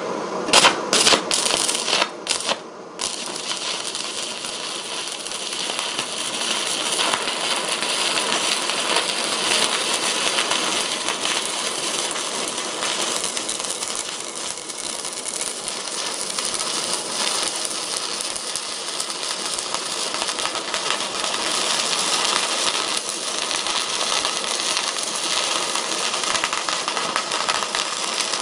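Stick (SMAW) welding arc from a small 120 V IGBT inverter welder, burning a thin electrode run DC electrode-positive, with a steady dense crackle as the bead is laid. A few sharp clicks come in the first three seconds before the crackle settles in. The current was set a little too hot, and it burned a small opening in the thin steel.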